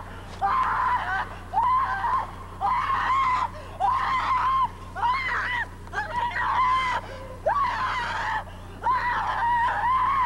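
High-pitched screaming: a voice shrieking over and over, about nine short cries, each under a second, with a brief break between them.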